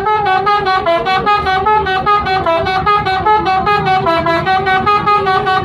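Bus telolet horn, a multi-tone air horn, playing a tune as a fast run of short staccato notes, about six a second, stepping up and down in pitch.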